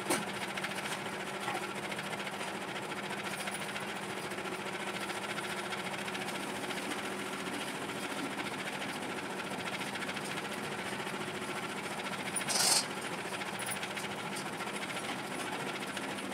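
A small electric motor hums steadily with a few constant tones. There is one brief, louder burst of hiss about three-quarters of the way through.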